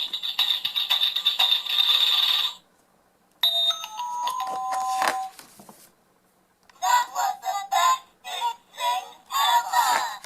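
Electronic sound book's button sounds played one after another: three short musical clips with pauses between them. First a jangly rhythmic clip, then a short run of stepped notes, then a choppy sung clip.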